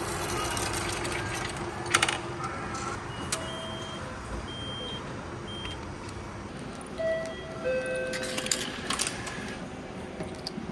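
Railway station ticket vending machine issuing a paper ticket: short electronic beeps and a brief chime at a few different pitches, with sharp mechanical clacks about two seconds in and near the end.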